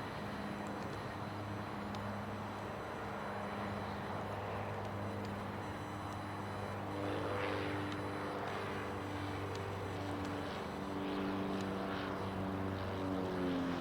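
Jet engines of an Airbus A321neo airliner taxiing, a steady drone with several humming tones that shift in pitch in the second half.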